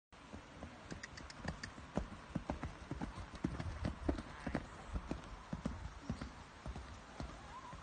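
Hoofbeats of a horse cantering on a sand arena surface: a run of dull thuds that grows loudest as the horse passes close, about halfway through, then fades as it moves away.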